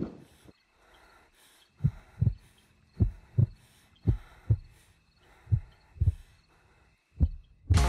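Heartbeat sound effect: five slow double thumps (lub-dub), about one every second and a quarter, starting about two seconds in.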